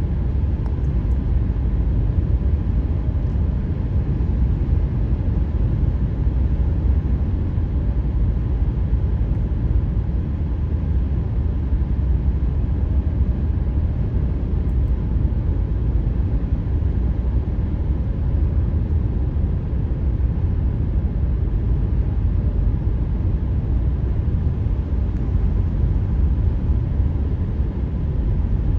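Steady tyre and road noise with a low rumble from a car driving along a highway.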